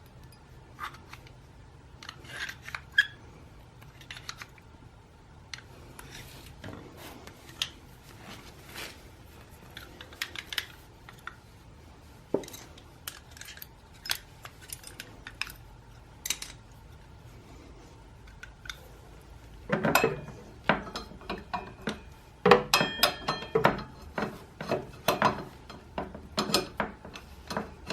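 Metal clinks, taps and light scraping as brake pads are worked into a motorcycle's front brake caliper. The clinks are scattered at first and become busier and louder about two-thirds of the way through.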